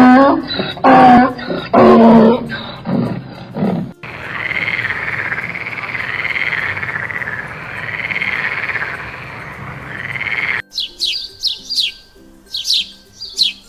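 Animal calls cut one after another. First there are several loud, pitched wailing calls. Around four seconds in they give way to a steady noisy stretch with a wavering tone that rises and falls. Near the end a bird sings quick, high, downward-sweeping notes.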